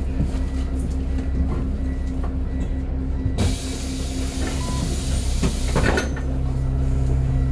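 Transbus double-decker's diesel engine idling with a steady hum while stopped. About three and a half seconds in, a hiss of air from the bus's air system starts suddenly and keeps going, and there are a few clunks near the end.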